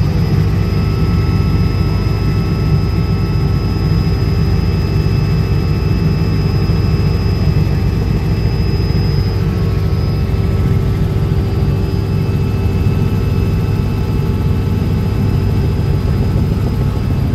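Helicopter in flight heard from inside the cabin: a steady, loud drone of rotor and engine with a thin, steady high whine above it.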